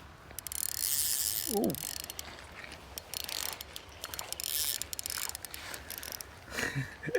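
Spinning reel being cranked in several spells while a bluegill is reeled in, the reel's gearing whirring and clicking.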